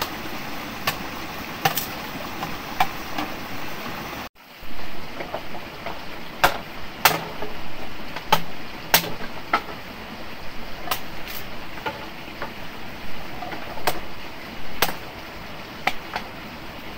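About a dozen sharp knocks or cracks at irregular intervals over a steady rushing background, with a brief drop-out about four seconds in.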